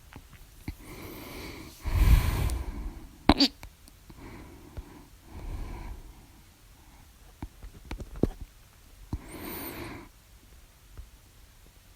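A woman hiccuping: two loud hiccups close together about two to three seconds in. Breathing and small sharp throat clicks come between them and follow them.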